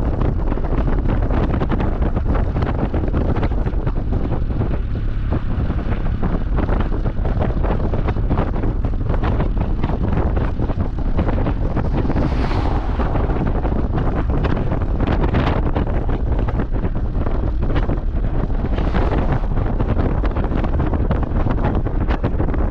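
Loud, steady wind buffeting the microphone, a dense rumbling rush with no letup.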